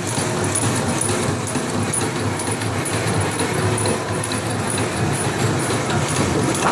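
A 1920s Racine power hacksaw running, its blade stroking back and forth through a steel bar: a steady, rhythmic mechanical clatter.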